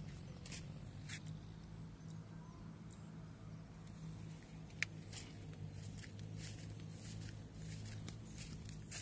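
Footsteps and scuffs on a grassy dirt path with irregular clicks from handling the phone, one sharp click about five seconds in, over a steady low hum.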